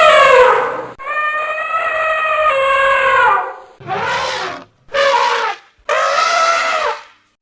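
Elephant trumpeting: a call falling away at the start, then one long call of about two and a half seconds and three shorter ones, each dropping in pitch as it ends.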